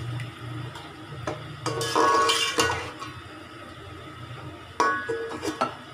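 Metal slotted spatula stirring potato chunks in tomato gravy, knocking and scraping against an aluminium pot several times. The harder knocks, about two seconds in and near the end, set the pot ringing briefly.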